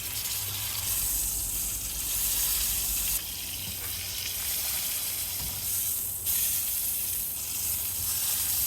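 Beef tenderloin searing in a hot pan, a steady sizzle that dips about three seconds in and comes back up about three seconds later.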